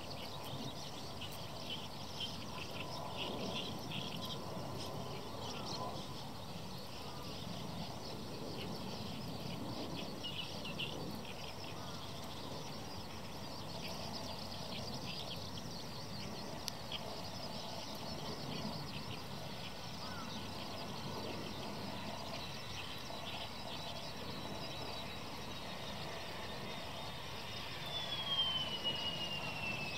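Outdoor ambience with birds chirping over a steady hiss. A thin whine from the Mitsubishi F-2B's jet engine comes in about halfway, holds, and then falls in pitch near the end as the jet passes on touchdown, getting louder.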